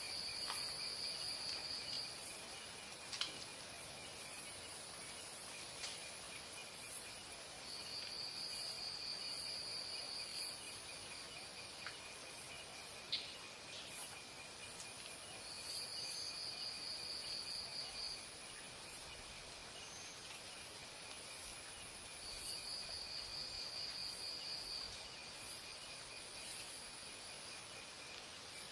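Insects chirring steadily, with a louder high, dry trill of two to three seconds that comes four times, about every seven seconds.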